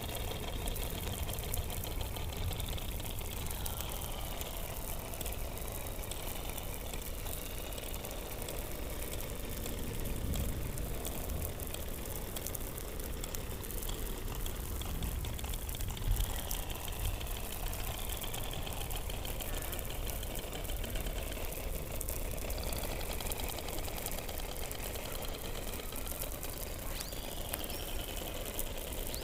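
Underwater hydrophone audio from beneath the Antarctic ice: a dense chorus of seal calls, with downward-gliding whistles recurring every few seconds over a steady mass of fast pulsed trills.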